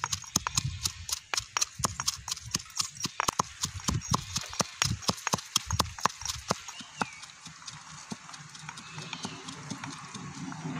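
Stone pestle pounding green chilies in a stone mortar: rapid knocks of stone on stone with dull thuds, several a second. The strokes turn lighter and sparser after about six and a half seconds.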